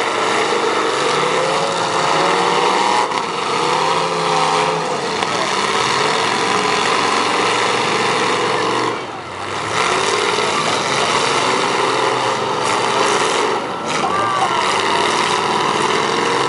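Several demolition derby cars' engines running and revving at once, their pitch rising and falling, with a brief lull about nine seconds in.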